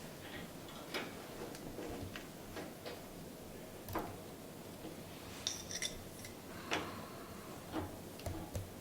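Scattered light clicks and taps of tools and metal hardware being handled, with a quick run of sharper clicks about five and a half seconds in.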